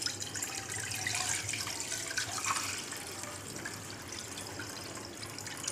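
Milk being poured from a glass bowl into a non-stick pan: a steady stream of liquid pouring and splashing into the pan.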